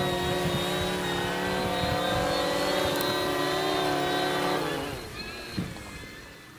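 AEE Condor fishing drone's propellers buzzing steadily in a hover as it comes down to a hand catch, then the motors wind down with falling pitch about five seconds in, followed by a short knock.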